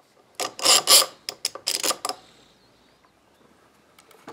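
Steel bar clamp being slid and set over a wooden clamping block: a run of rasping, rattling metal strokes with sharp clicks for about a second and a half, then faint handling and a small click near the end.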